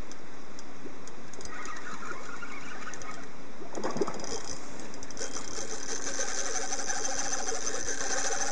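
Penn Slammer 360 spinning reel running under load while a large saithe is played on light tackle: a steady mechanical whirr that grows stronger from about halfway through, with a brief knock about four seconds in.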